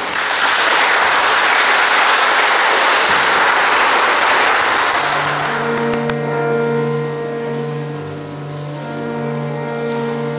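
Audience applause, fading out after about five seconds. Slow instrumental music with long held notes then begins.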